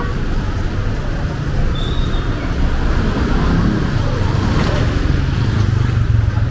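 City street traffic: the low, steady rumble of car and motorcycle engines, with a nearby engine hum growing stronger over the last couple of seconds.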